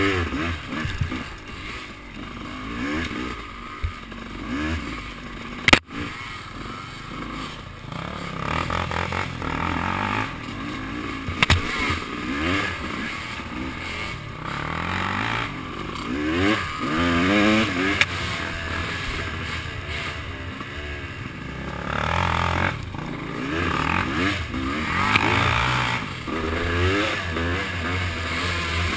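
Small off-road engine revving up and falling back again and again while riding a trail, with a sharp knock about six seconds in.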